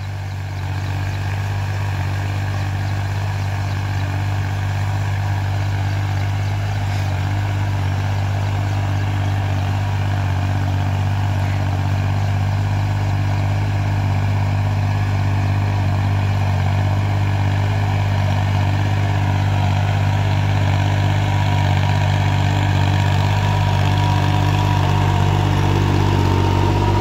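Sonalika 20 hp mini tractor's diesel engine running steadily while it drives a rotavator through the soil, growing louder as the tractor comes closer. A thin whine joins near the end.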